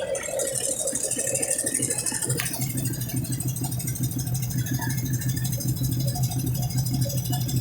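Brastemp Ative 11 kg top-loading washing machine running: a click about two and a half seconds in, then its motor hums steadily with a light rattle.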